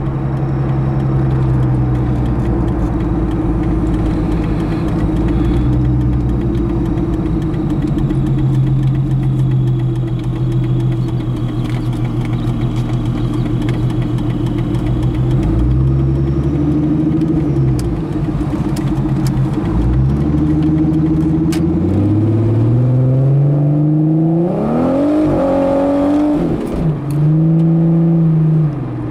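Paxton-supercharged 3.5-litre V6 of a 2001 Plymouth Prowler, with headers and modified exhaust, heard from the driver's seat. It runs steadily at low revs, then from about halfway revs up and falls back a few times. Near the end comes hard acceleration, the pitch climbing steeply, dropping at a gear change and rising again.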